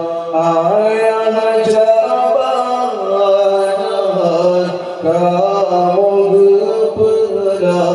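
A man singing an Acehnese qasidah solo into a microphone, holding long notes and ornamenting them with winding turns of pitch.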